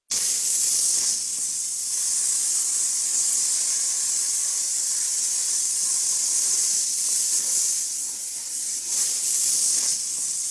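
A loud, steady high-pitched hiss that starts suddenly and holds without a break.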